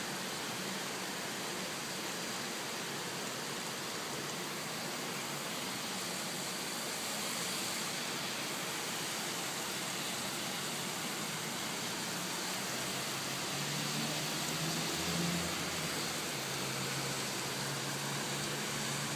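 Steady hiss of rain falling at night. A faint low hum joins in about two-thirds of the way through.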